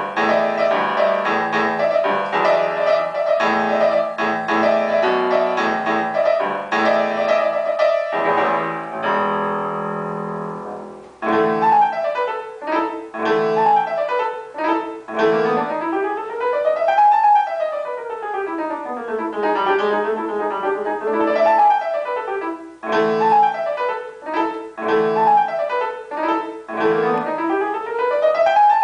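Solo grand piano playing: dense repeated chords for the first several seconds, a held chord that dies away about ten seconds in, then quick arpeggios sweeping up and down the keyboard.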